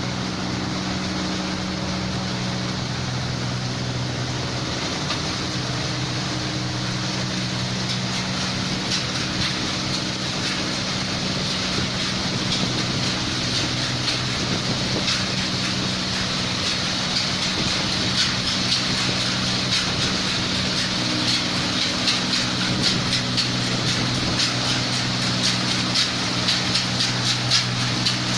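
NH 8070 rice combine harvester running steadily with a low engine hum, joined by a rapid clattering rattle that grows denser from about eight seconds in.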